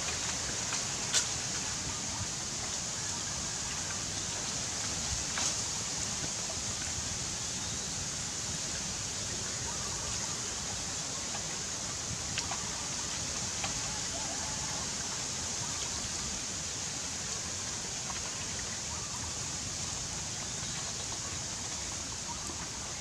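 Steady outdoor hiss with a few faint, light clicks scattered through it.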